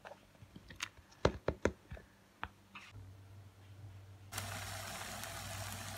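A metal spoon clinks and taps against a glass bowl of beaten egg mixture, with several sharp knocks in the first half. About four seconds in, a steady sizzle of hot oil in a frying pan starts abruptly.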